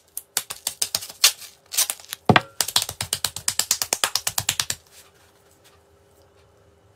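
Pink adhesive tape being pulled off its roll in fast, crackling runs of clicks, densest at about ten a second, stopping about five seconds in.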